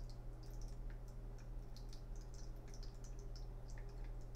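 Faint, scattered small ticks and clicks, irregularly spaced, over a steady low electrical hum.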